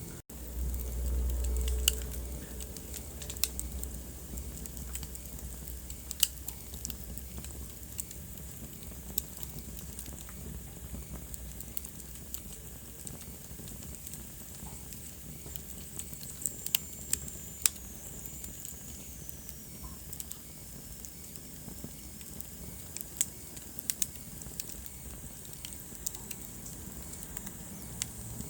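Wood fire burning in a fireplace: a steady hiss with frequent sharp crackles and pops. A brief low rumble comes near the start, and a faint high whistle slowly falls in pitch past the middle.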